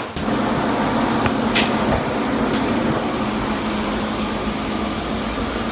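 A steady mechanical hum and hiss, like a fan or ventilation, with a couple of faint clicks. No shots are fired.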